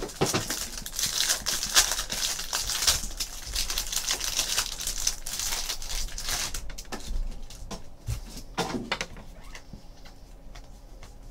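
Plastic wrapper of a trading-card pack crinkling and tearing as it is opened. After about six seconds this gives way to quieter, scattered clicks and slides of the cards being handled.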